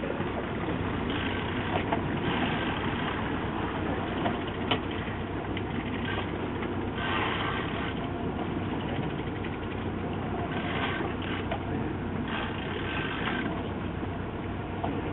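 Boat engine running steadily, with a rushing hiss that swells several times.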